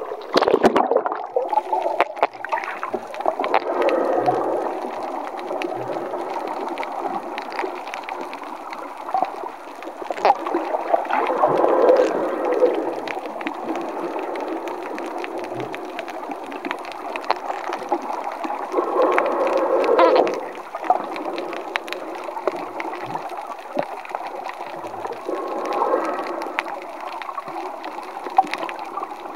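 Underwater sound picked up by a camera as it goes below the sea surface with a splash about half a second in, then a muffled rushing of water that swells and fades every several seconds.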